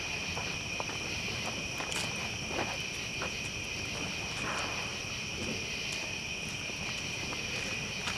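A steady chorus of night insects trilling continuously, with a large campfire crackling and popping now and then over it.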